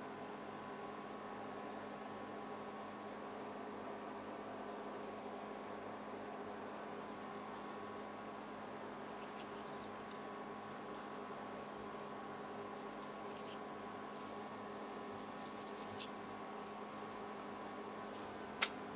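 Knife trimming the thin layer of fat and membrane off the cap of a beef chuck roast: faint, scattered scraping and small clicks over a steady hum, with one sharper click near the end.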